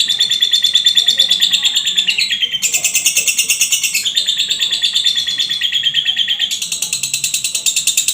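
Caged songbird singing a rapid machine-gun-like trill, the 'tembakan' style used as a training song: long phrases of very fast, high repeated chirps, each about two seconds long, changing pitch from one phrase to the next.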